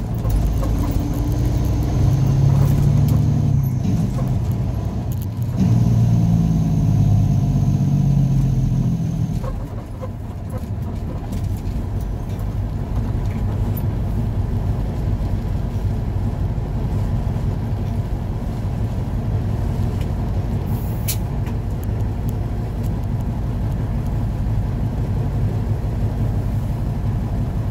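Truck engine pulling hard under load for about nine seconds, with a brief break about five seconds in as a gear changes. It then drops to a steady low run as the truck eases off and rolls to a stop.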